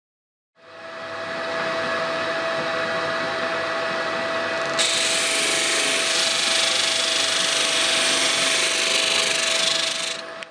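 Electric disc sander running with a steady hum. About halfway through, a small wooden segment is pressed against the spinning sanding disc and a loud, steady sanding hiss joins in: the segment's end is being ground to a 15-degree angle.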